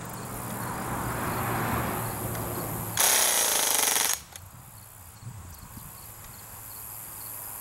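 Umarex Legends M1A1 Thompson-style CO2 BB gun firing one full-auto burst, a rapid stream of shots lasting about a second, starting about three seconds in.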